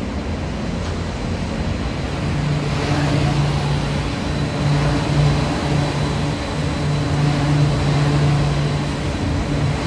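Rubber-tyred automated metro train pulling into the station and slowing alongside the platform: tyre rumble with a low motor hum that cuts in and out, growing a little louder from about two seconds in as the cars draw level.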